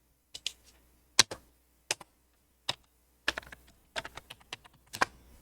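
Computer keyboard keys being typed: a few separate keystrokes spaced out at first, then a quicker run of keystrokes in the second half.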